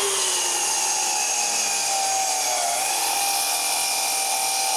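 Electric power saw motor running steadily at full speed with a high whine, its pitch dipping briefly about two and a half seconds in.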